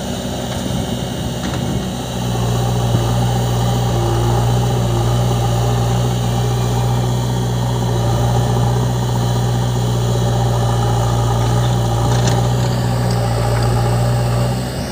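JCB 3DX backhoe loader's diesel engine running at a steady, constant speed while the backhoe arm digs, with no clear revving.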